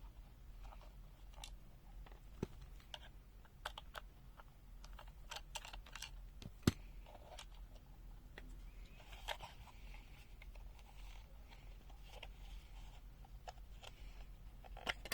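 Faint, irregular clicks and taps of the UNI-T UT121A multimeter's plastic case being handled as its loosened back-cover screws are taken out and the cover lifted off, with a few sharper clicks standing out.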